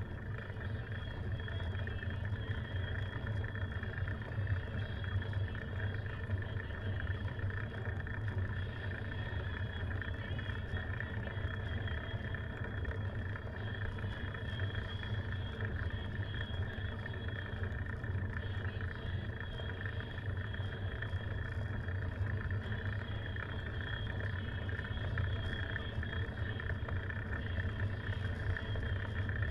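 Steady wind and tyre noise from a bicycle riding on an asphalt road, picked up by a camera mounted on the bike, mostly a low rumble that barely changes.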